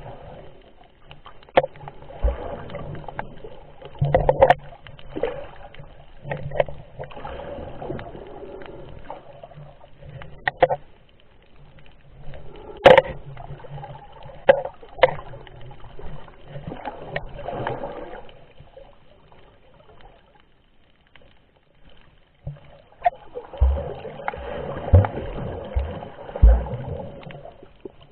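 Muffled underwater swimming sounds picked up by a submerged camera: water swishing in recurring swells, with many sharp clicks and a few low thumps at irregular moments. A quieter stretch comes about two-thirds of the way through.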